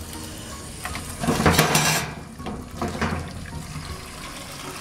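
Tap water running over chopped cassava pieces as they are rinsed in a pot, with light clinks of the pieces and the pot. The splashing is loudest for a moment about a second in.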